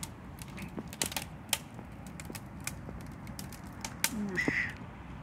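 A fire of dry scrap wood burning hard, crackling with irregular sharp pops, about two or three a second.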